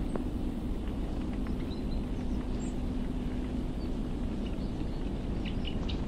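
Steady low outdoor rumble with a faint steady hum through the middle, and a few faint, short high chirps from small birds.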